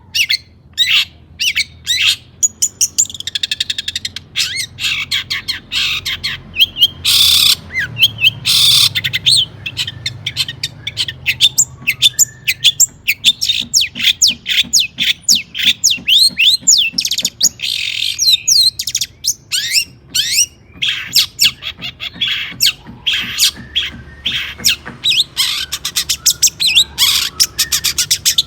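Long-tailed shrike (cendet) singing continuously: a rapid, varied run of sharp chirps and quick sweeping notes, with two short harsh rasping calls about seven and nine seconds in.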